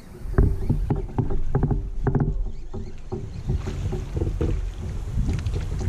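Irregular knocks and taps on a plastic fishing kayak's hull as gear is handled, over a low rumble of water and wind.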